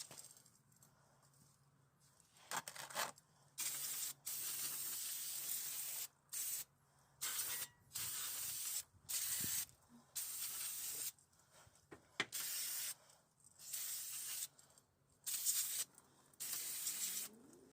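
An aerosol spray can hissing in about a dozen short bursts, each up to about two seconds long, with short gaps between them.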